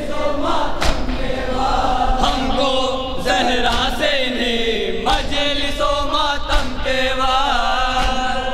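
A group of men chanting a noha, a Shia mourning lament, amplified, with the crowd's unison chest-beating (matam) landing as sharp slaps roughly every one and a half seconds.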